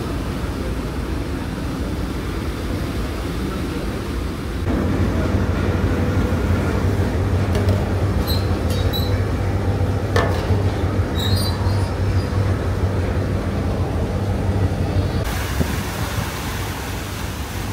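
Steady low drone of a ro-ro passenger ferry's engines under way, growing louder about five seconds in, with a few faint clicks in the middle.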